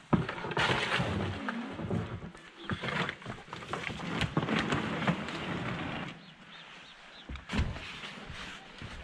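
Knocking, scraping and crunching of a boat and broken shore ice as a man clambers from the ice into the boat, with a heavy thump near the end.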